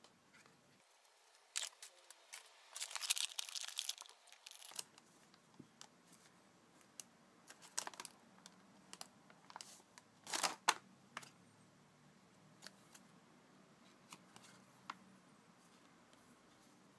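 Plastic snack bag and its foil card packet crinkling and tearing as they are opened by hand, in irregular bursts with small handling clicks between. The densest crinkling comes a couple of seconds in, with another sharp burst about ten seconds in.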